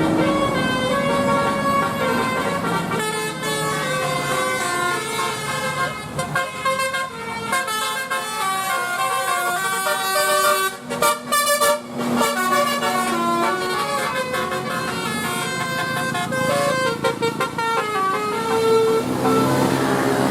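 Bus telolet horn, a multi-tone air horn, playing a quick melody of short notes that step up and down in pitch, with a couple of brief breaks between phrases around the middle.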